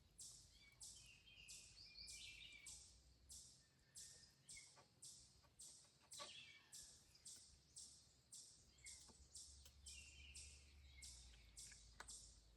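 Near silence with a faint, high chirping pulsing evenly about two to three times a second, and a few faint clicks.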